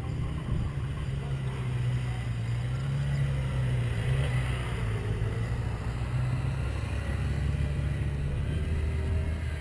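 Sport motorcycle engine running at low to moderate revs as the bike rides past, its note shifting lower in the second half.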